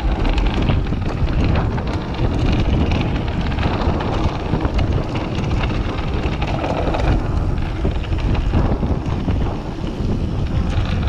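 Wind buffeting an action camera's microphone as a mountain bike rides a trail, with a steady low rumble from the ride.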